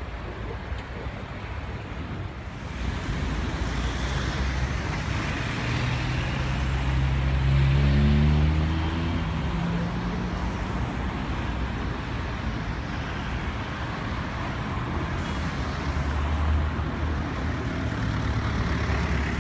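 Busy city street traffic: a steady wash of passing cars and engines. One vehicle's engine rises in pitch as it pulls away, loudest about eight seconds in, and another swells past near the end.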